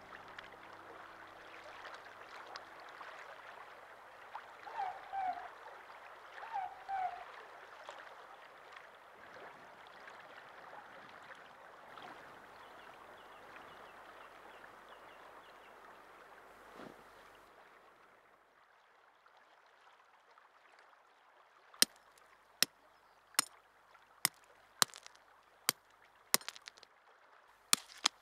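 Running stream ambience with a bird giving a two-note call twice. After it fades, a series of sharp, evenly spaced knocks, a little faster than one a second: a tent peg being hammered into the ground.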